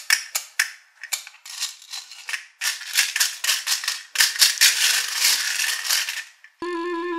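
Small plastic beads rattling and clattering against each other and the plastic tray as a toy grabber claw scoops through them, in irregular bursts of clicks. A short electronic musical tune starts near the end.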